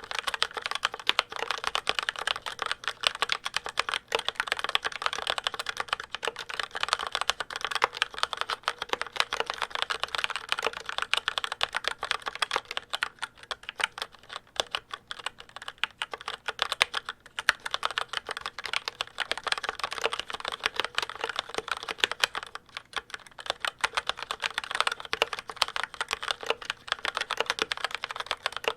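Fast, continuous typing on a Logitech K835 TKL mechanical keyboard with TTC Red linear switches: a dense stream of key clacks.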